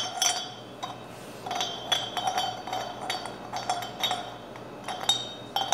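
Metal parts of a Panasonic meat grinder clinking and scraping as a part is pushed into the grinder head's metal housing: a series of short, ringing metallic clinks.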